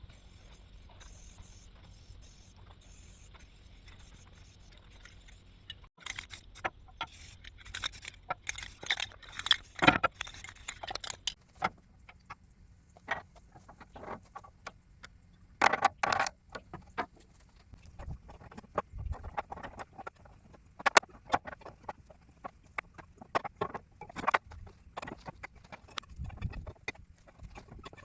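Irregular clinks, knocks and scrapes of hand work, starting about six seconds in after a low steady hum.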